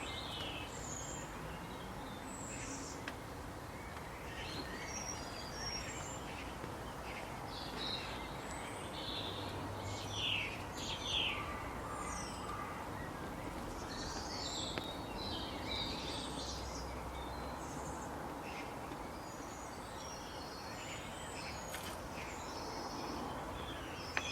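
Birds chirping and calling, many short high calls scattered throughout, over a steady background hiss.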